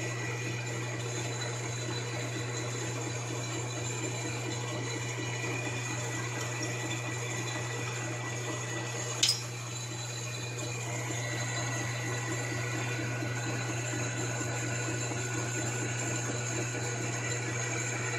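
Metal lathe running steadily while turning a brass rod, a constant low hum with a thin high whine over it. A single sharp click comes about nine seconds in.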